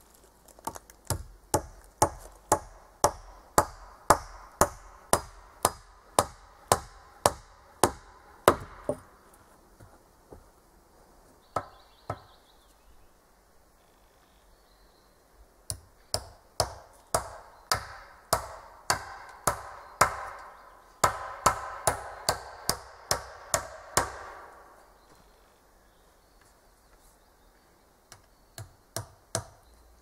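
Hatchet blows on the log ridge pole of a dugout's pole roof, struck in steady runs of about two a second, with a long pause in the middle and a few last blows near the end.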